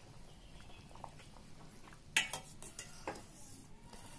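Steel ladle clinking and scraping against a stainless steel pot while stirring pieces of dough in hot water, with one sharp clink about two seconds in and a few lighter taps.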